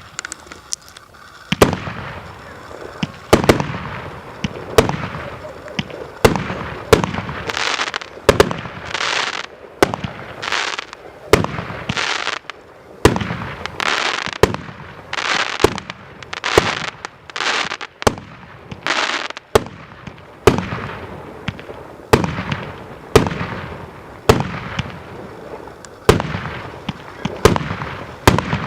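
A consumer firework battery (multi-shot cake) firing shot after shot, about one shot every second or so: each a sharp bang followed by a hissing, crackling tail that fades before the next.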